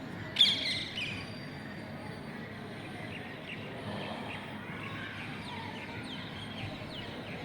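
A parrot gives one loud call about half a second in and a shorter one a moment later. Birds then keep up many short, quick chirps over steady background noise.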